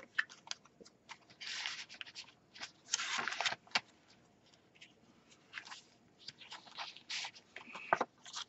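Paper rustling and crinkling as the pages, tags and cards of a handmade paper junk journal are handled and turned, in short irregular bursts, with two longer rustles about one and a half and three seconds in.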